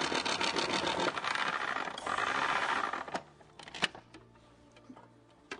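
Food processor running with its grating disc, shredding a block of parmesan fed down the chute: a loud, rough grinding with fast fine rattling. The motor stops about three seconds in, and a couple of clicks follow.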